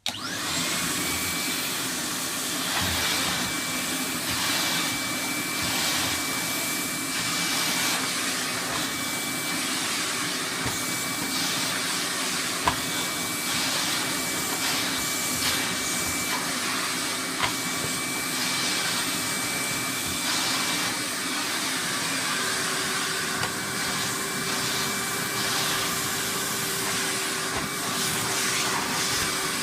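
Premier Mini 175 cylinder vacuum cleaner, fitted with a 1200-watt Numatic twin-flow motor, switching on and running steadily with a thin high whine, its airflow noise swelling and easing as it is used. Two brief sharp clicks come near the middle.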